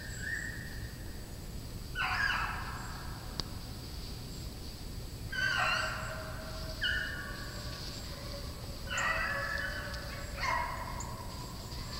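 Hunting hounds baying on a deer chase: about six drawn-out bays spread a second or two apart, some starting high and dropping in pitch.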